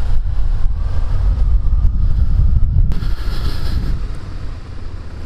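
Wind buffeting a microphone inside a motorcycle helmet while riding a Suzuki SVF650 Gladius on wet roads, a dense low rumble. About three seconds in the sound changes and a higher hiss comes in, and the rumble eases toward the end.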